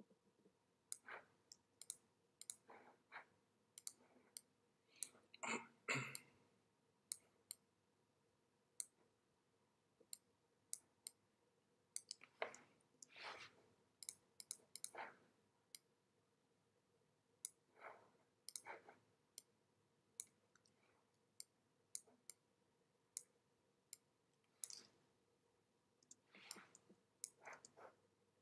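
Faint, irregular clicking from computer input devices as a computer is worked: many short, sharp clicks with uneven gaps.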